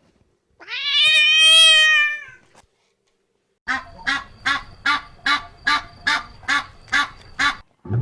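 A cat gives one long, drawn-out meow, then a duck quacks about ten times in a quick, even series.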